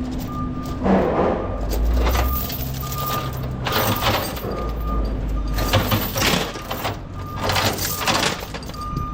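A vehicle's reversing beeper sounding about once a second over a low engine rumble, broken by several louder bursts of rough noise.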